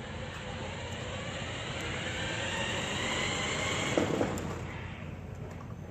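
Motorised remote-control cooler driving on high speed under a load of over 75 pounds, its electric drive running with a faint whine. It gets louder toward the middle and eases off near the end, with a brief knock about four seconds in.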